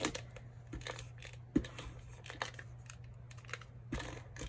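Paper and cardstock being handled and pressed down on a tabletop: soft rustles with scattered light clicks and taps, the sharpest about a second and a half in, over a steady low hum.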